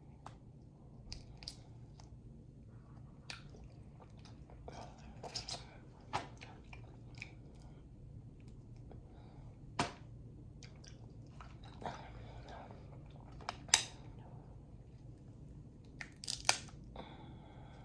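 Boiled Dungeness crab shell being cracked and pulled apart by hand, with sharp snaps every second or two, the loudest near the middle and near the end, among close-up chewing and crunching.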